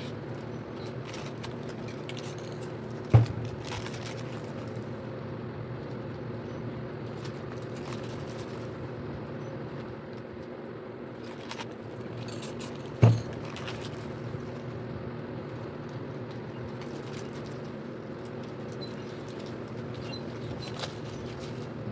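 A steady low mechanical hum, like a motor or fan running. Two sharp knocks stand out, one about three seconds in and one about ten seconds later, with faint light clicks in between.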